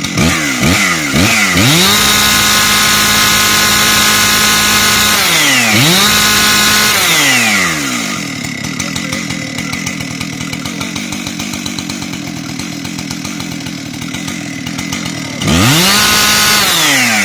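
Husqvarna 585 two-stroke chainsaw revved: quick blips near the start, then held at full throttle for a few seconds, dropping back and revving again, then idling for several seconds before one more full-throttle rev near the end that falls away.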